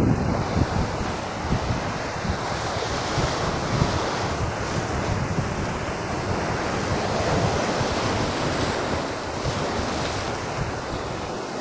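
Sea waves breaking and churning over rocks in a steady rush of surf, with wind buffeting the microphone, gustier in the first seconds.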